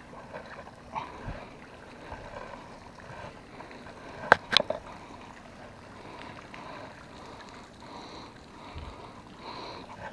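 Magnet-fishing rope being hauled in hand over hand over a wooden bridge railing: faint handling rustles over a steady low hiss, with two sharp knocks close together about four and a half seconds in.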